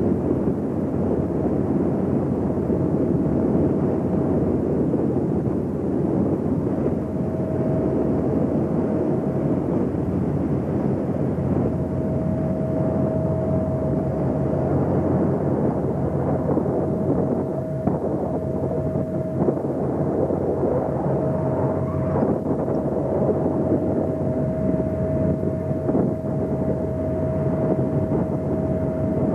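Steady drone of the train ferry M/S Dronning Ingrid under way, heard on its open deck: a dense, even rumble of engines and ventilation with a single steady hum that grows clearer partway through.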